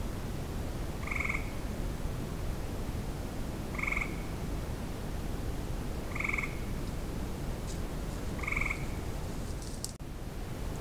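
A frog calling at night: four short trills about two and a half seconds apart, over a steady hiss.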